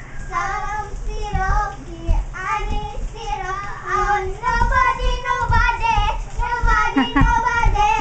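A young child singing a tune without clear words, in a high voice with gliding notes and some longer held notes in the second half.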